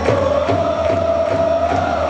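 Football supporters in the stands chanting together on one long held note, over a steady drum beat.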